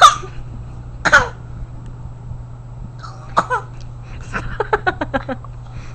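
A young child coughing in short fits: two sharp coughs about a second apart, two more near the middle, then a quick run of about eight short coughs. They are forced, put-on coughs rather than a real cough.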